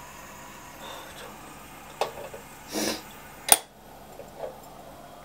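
Tableware clinking and knocking a few times over a low room hum, with a short rustle in between; a sharp clink about three and a half seconds in is the loudest.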